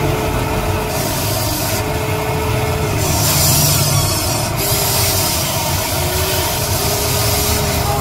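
The electric motors of a Huina radio-controlled toy excavator whine in five short runs of about half a second to a second and a half as the boom and bucket move. Each run rises at the start and drops off at the end, over a steady low drone.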